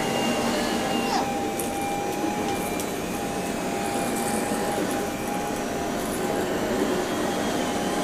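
Vacuum cleaner running with a steady motor whine.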